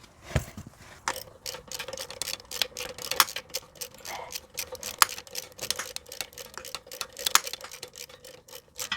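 Irregular clicks and clinks of hand tools and parts being handled while unbolting fittings on an engine, with a few sharper knocks, over a faint steady hum.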